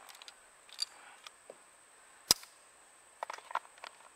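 Handgun being handled and holstered: one sharp click a little over two seconds in, with a few lighter clicks and rustles near the end.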